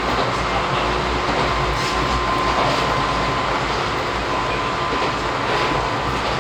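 Izuhakone Railway 3000 series electric train running along the track, heard from inside the passenger car: a steady rumble of wheels on rails with a faint, thin high tone over it.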